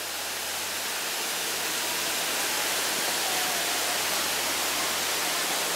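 Steady rushing of a mountain creek, growing louder over the first couple of seconds.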